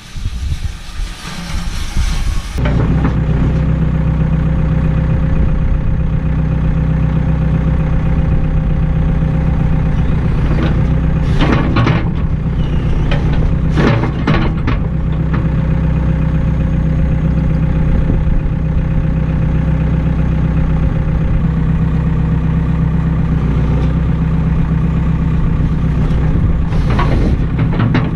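A short hiss, then an engine starts running steadily at a constant speed, with a few brief louder bursts over it.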